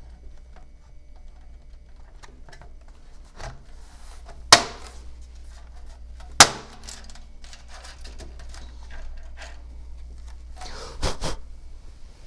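Front panel of a Riotoro CR1288 full-tower PC case being pressed back onto the chassis: light handling rattles, two sharp snaps of its clips about four and a half and six and a half seconds in, and a quick double knock near the end as it seats.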